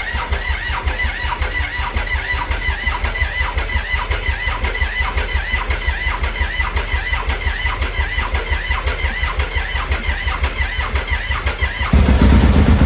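1994 Triumph Speed Triple 900's three-cylinder engine being cranked over on the electric starter, a long run of even rhythmic pulses with a repeating high chirp. Near the end it fires and runs, suddenly much louder.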